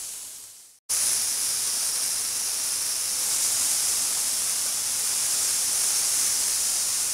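Mutton seekh kebabs sizzling in oil on a hot tawa, a steady bright hiss. It fades out into a brief silence just under a second in, then starts again and runs steadily.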